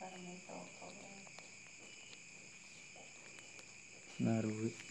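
Crickets chirring steadily and high-pitched in the background, with faint rustling of cloth. Near the end comes one short, low voice-like sound.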